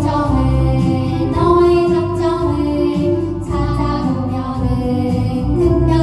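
Three children singing a Korean children's song (dongyo) into handheld microphones, with instrumental accompaniment.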